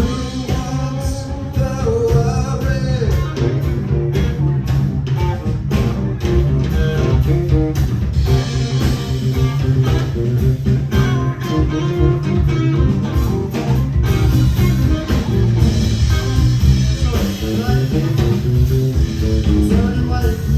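Live rock band running through a blues-rock passage: guitar, bass guitar and drums playing together at full volume, with bending guitar lines near the start.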